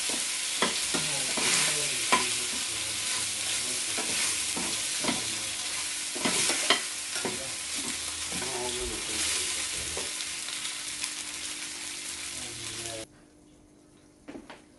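Chicken pieces sizzling in a very hot frying pan while being stir-fried, with scrapes and taps of a metal spoon against the pan. The sizzle cuts off suddenly about 13 seconds in, leaving only a few faint knocks.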